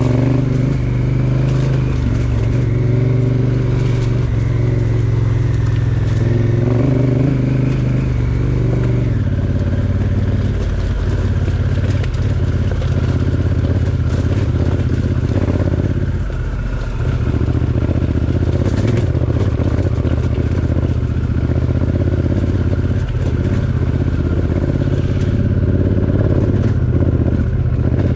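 Honda Africa Twin parallel-twin motorcycle engine running steadily while the bike is ridden off-road. The engine note changes about nine seconds in, and scattered clicks and rattles run through it.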